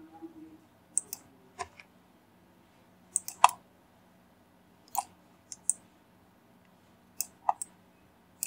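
Computer mouse and keyboard clicking as a 3D model is scaled and moved: about a dozen short, sharp clicks, some singly and some in quick pairs, spread across the stretch.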